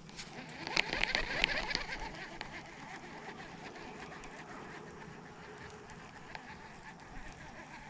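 Baitcasting reel being cranked: a whirring with rapid clicks about a second in, lasting about a second, then only faint steady background.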